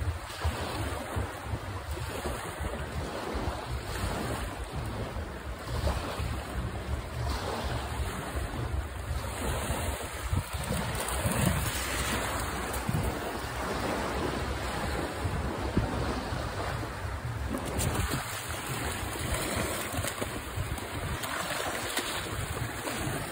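Small waves breaking and washing up a sand-and-pebble beach, with wind buffeting the microphone in a steady low rumble.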